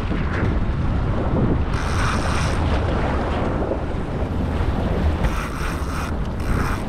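Wind buffeting the microphone over water sloshing against a boat hull, with brief brighter hissing stretches about two seconds in and again near the end.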